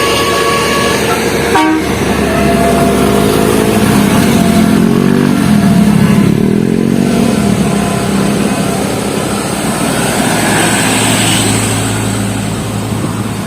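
Bus running past, its engine pitch rising and falling in the middle, with steady horn tones near the start and a sharp click about one and a half seconds in.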